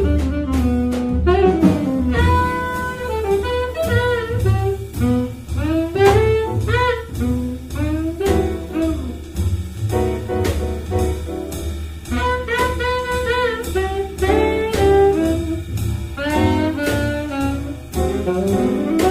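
Jazz quartet playing: saxophone leading with a flowing line of many short notes over walking upright double bass, drum kit with cymbals, and piano.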